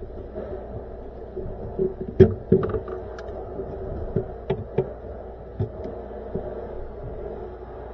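Handling noise of wire-splicing work: a scattering of short, light clicks and knocks from tools and wires being worked, the loudest a little over two seconds in, over a steady low hum.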